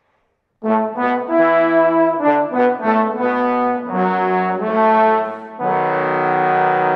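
Trombone quartet, with bass trombone, playing chords. It comes in just after half a second with a run of short, detached chords, moves to longer held chords, then settles on a long sustained chord from about five and a half seconds in.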